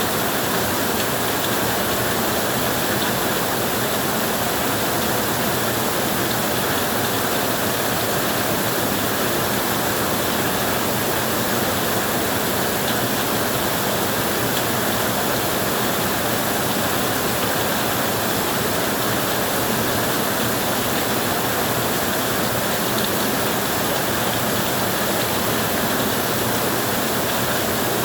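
Heavy rain pouring steadily onto a tin roof, a dense even hiss with no thunder.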